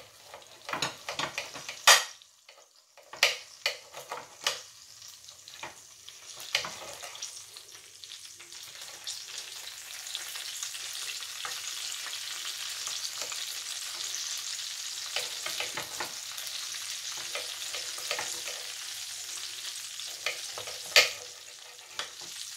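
Knife and fork cutting baked pork spareribs in a glass baking dish: sharp clicks and scrapes of metal on glass over the first few seconds, then a steady sizzling hiss from about seven seconds in, with a few more clicks and one loud click near the end.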